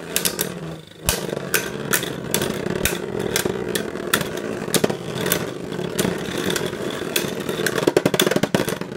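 Beyblade Burst spinning tops whirring in a plastic stadium, with many sharp, irregular clicks and knocks as they rattle and strike each other and the stadium walls.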